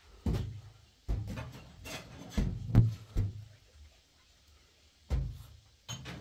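A string of irregular knocks and thumps, about eight over a few seconds, with a quiet gap of over a second before the last two.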